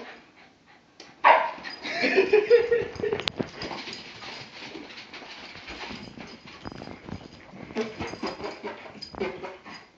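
Agitated Shiba Inu whimpering and yipping, starting suddenly and loudly about a second in. A continuous rough noise with many small clicks runs on until near the end.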